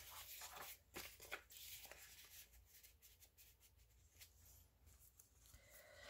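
Faint rustling and soft clicks of paper pages being handled and turned in a handmade junk journal, mostly in the first couple of seconds, then near silence.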